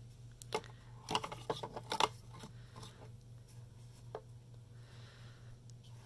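Scattered light clicks, taps and rubbing from handling, bunched in the first two and a half seconds with one more tick about four seconds in, over a faint steady low hum.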